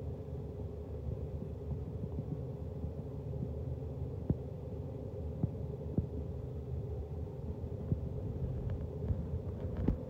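Muffled low rumble of a phone microphone pressed against clothing, with fabric rubbing and a few faint knocks in the middle of the stretch.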